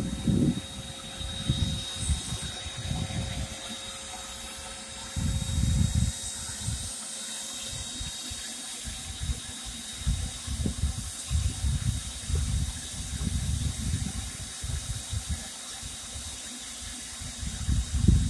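Wind buffets the microphone in uneven gusts of low rumble. Beneath it runs a steady hissing drone from a swarm of robbing honey bees flying around the cutout.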